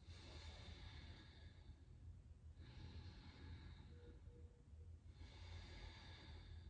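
Faint breathing close to the microphone: three soft breaths, about two and a half seconds apart, over a steady low room hum.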